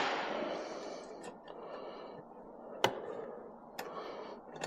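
A few isolated sharp metallic clicks and taps, the clearest about three seconds in and another about a second later, from tools and parts being handled at a mini bike's rear axle.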